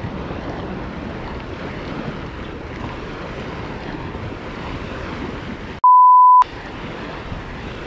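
Steady wind noise on the microphone over gently lapping sea. About six seconds in, a loud, steady half-second beep cuts out all other sound: an edited-in censor bleep.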